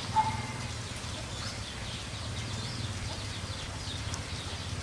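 Quiet background ambience: a steady low hum with faint short bird chirps now and then. The hand-folding of the wonton wrapper makes no clear sound of its own.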